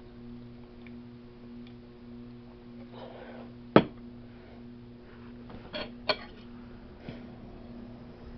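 A drink cup set down on the table with one sharp knock, then two quick clinks of a fork against the plate a couple of seconds later. A steady low hum runs underneath.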